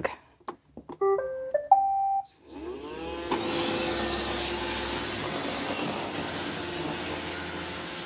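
iRobot Roomba 675 robot vacuum being started: a few clicks of its Clean button, then its short rising start-up tune of electronic beeps. Its vacuum motor and brushes then spin up and settle into a steady whirr and hum as it begins cleaning.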